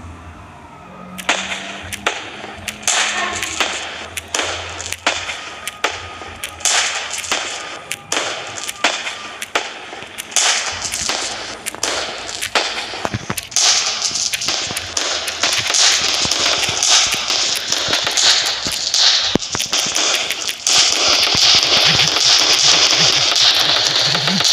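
Fireworks display: sharp bangs begin about a second in and come thick and fast, building in the second half into a dense, continuous crackling volley that grows louder near the end.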